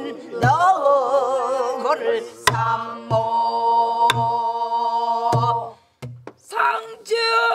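Pansori singing: held, wavering notes with bending ornaments, accompanied by a soribuk barrel drum. The drum gives several deep palm thumps on the head and a few sharp stick strokes on the rim and body.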